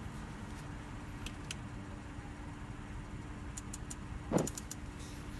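Steady low hum inside the cabin of a 2014 Audi S4 with its electrics on, with a few faint clicks of the dashboard controls being operated. About four seconds in there is one short sound that slides down in pitch.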